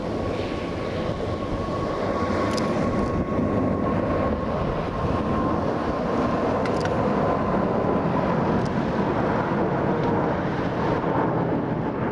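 Boeing 777-200 jet engines running at takeoff power as the airliner climbs out past. A loud rumbling roar swells over the first couple of seconds, then holds, with a steady engine whine that sinks slightly in pitch.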